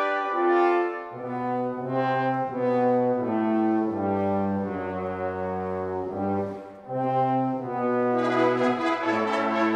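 Brass quintet of two trumpets, French horn, trombone and tuba playing music in long held chords, the tuba's bass line coming in about a second in, with a short breath between phrases about two-thirds of the way through.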